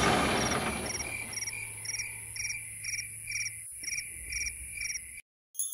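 Crickets chirping in even short pulsed chirps, about two a second, as a night-time effect while the music fades out. The chirping cuts off suddenly about five seconds in.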